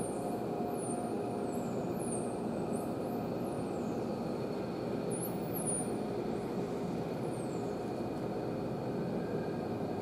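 Steady low rushing noise of the aquarium tank's water, heard underwater. Through it come several high, thin whistles, mostly sliding down in pitch, over the first seven seconds or so: bottlenose dolphin whistles.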